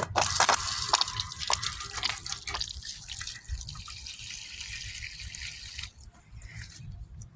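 Water splashing and dripping onto a plastic satellite dish as it is wetted down before scrubbing. The splashing is heaviest for the first few seconds, then thins to scattered drips.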